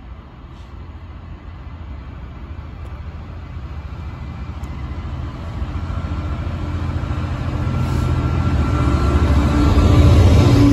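Class 66 diesel freight locomotive, with its two-stroke EMD V12 engine, approaching on the line. The engine's low running note grows steadily louder until the train is passing close by near the end.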